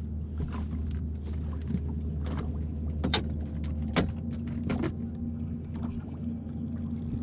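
Boat motor humming steadily, with a few sharp knocks about three, four and five seconds in.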